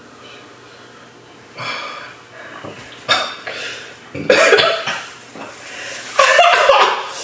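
A man and a woman coughing and laughing in short outbursts as the chili heat of the chip hits, the last two bursts the loudest.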